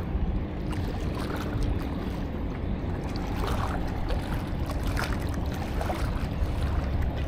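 Steady low rumble of wind on the microphone and moving water, with a few faint scattered ticks.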